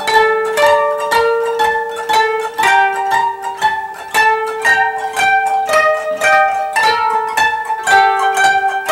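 Thirteen-string koto music: plucked strings in a steady stream of notes, each note ringing on after it is struck.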